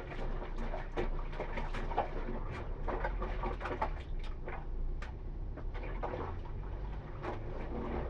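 Bare feet treading soapy laundry in a plastic basin of water, with irregular wet squelches and slaps at each step.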